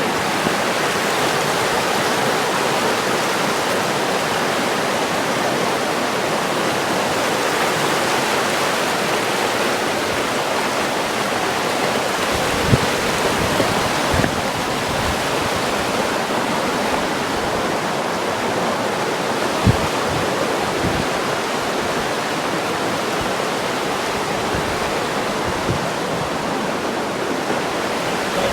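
River water rushing steadily over rapids, with a few brief low thumps partway through.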